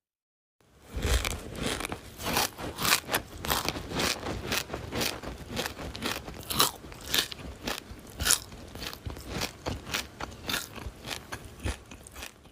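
Someone biting and chewing crisp, crunchy food: a dense, irregular run of sharp crunches that starts after a brief silence about a second in.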